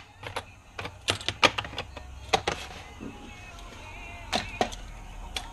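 Irregular light clicks and taps of small hard objects being handled, in quick clusters about one to three seconds in and again near the end.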